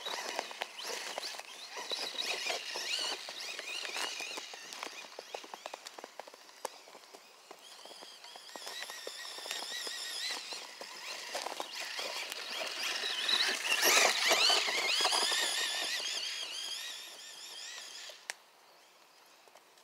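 Arrma Voltage RC dune buggy's 3900 KV brushless electric motor whining, rising and falling in pitch as it speeds up and slows down through powdery snow, with scattered crunching clicks. It is loudest about two-thirds of the way in and fades away near the end.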